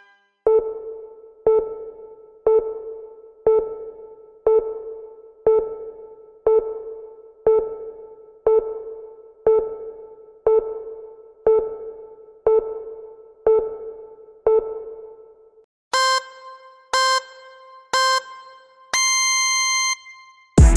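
Electronic workout-timer beeps: a soft tone about once a second for some fifteen seconds, then three short, higher beeps a second apart and one longer beep, the countdown that ends the exercise interval.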